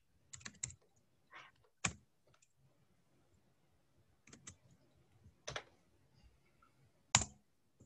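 Computer keyboard keystrokes: a handful of separate clicks with long pauses between them, the sharpest one near the end.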